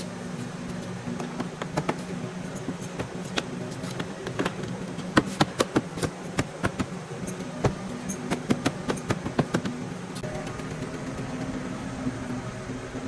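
A steady low hum with a run of sharp, irregular taps and knocks through the middle.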